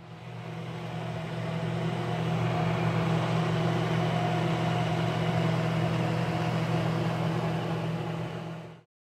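Miller Thunderbolt 225 AC arc welder switched on with no load: its transformer hums steadily and its cooling fan whirs, building up over the first two seconds, then it stops abruptly near the end.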